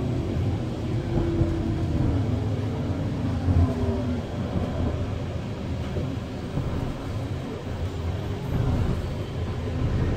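Irisbus Citelis 12 city bus heard from inside the cabin while driving: a steady low rumble of the engine and drivetrain, with a faint whine that drops in pitch in the first few seconds.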